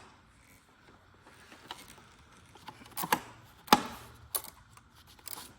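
A few sharp clicks and knocks against a low background, the loudest a single sharp knock about three and a half seconds in.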